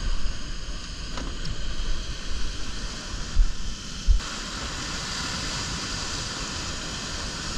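Heavy surf washing over a rocky shore: a continuous rush of water and foam that turns more hissy about four seconds in, with two dull thumps just before.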